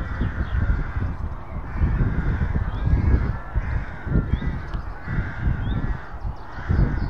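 Crows cawing repeatedly, a harsh call every second or so, with faint chirps of smaller birds higher up. Underneath is a loud, uneven low rumble.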